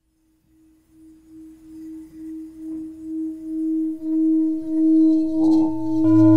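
Singing bowl sounding one sustained tone that swells in slow pulses and grows steadily louder. A higher overtone joins about halfway, and a low pulsing hum comes in right at the end.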